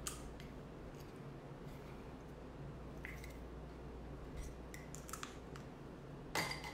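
Small makeup items being handled: faint scattered clicks and taps of a lip liner pencil and cosmetic cases in the hands, with a louder cluster of clicks near the end, over a steady low room hum.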